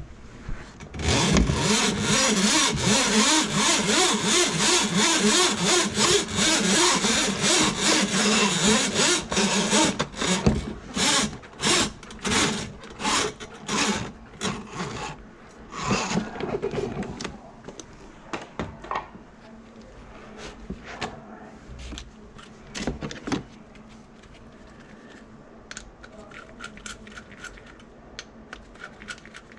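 Electric drum-type drain cleaning machine running, its cable spinning and rattling in a grease-clogged kitchen drain line: one long run of about nine seconds, then short bursts about once a second, then a few more before it stops. Faint clicks of plumbing parts being handled near the end.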